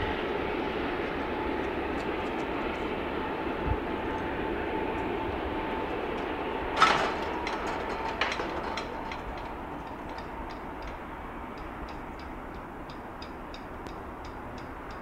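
Unseen train running on the line, a steady rumble that slowly fades, with faint regular rail clicks toward the end. A single sharp metallic bang about seven seconds in is the loudest sound.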